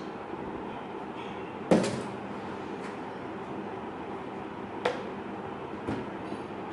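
Knocks from handling a MacBook Air and its cardboard box: one sharp knock about two seconds in, a lighter one near five seconds and a faint one just after. A steady background hum runs underneath.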